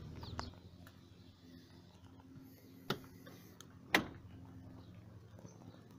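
Two sharp clicks about a second apart, the second louder, over a faint steady hum.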